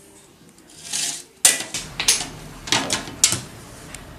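Pieces of cut sheet glass clicking and knocking as they are handled on the workbench, about five sharp clicks, the first the loudest, after a short rustle of a paper sheet about a second in.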